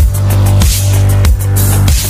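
Electronic dance music in a dubstep style, with a heavy sustained bass line and a steady beat.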